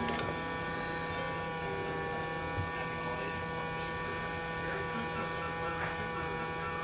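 Robot vacuum's motors running with a steady electric whine made of several held tones, a few faint clicks over it; the vacuum is one that won't move on carpet.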